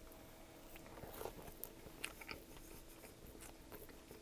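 Faint, close-miked chewing of a bite of sub sandwich: scattered soft crunches and mouth clicks.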